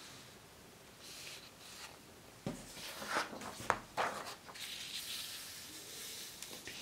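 Paper rustling as sheets are handled, with a cluster of sharp knocks and clicks in the middle as sheets are lifted off and laid on a wooden tabletop.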